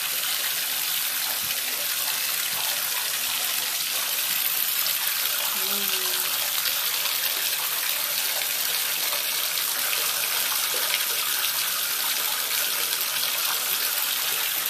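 Bathtub tap running steadily, a continuous even hiss of water. A single short voice sound about six seconds in.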